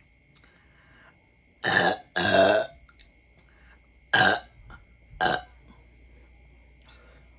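A woman burping loudly four times: two big belches close together, the second longer, then two shorter ones a couple of seconds later.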